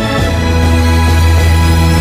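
Background music of held chords over a sustained bass note, the bass moving to a new note just after the start.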